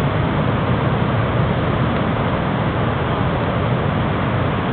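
Steady, loud rush of whitewater as a raft runs a big river rapid, a dense noise with no break.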